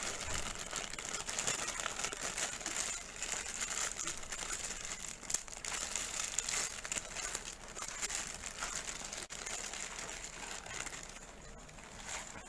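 Packaging crinkling and rustling as a boxed toy figure is unwrapped by hand, with many small crackles; it dies down near the end.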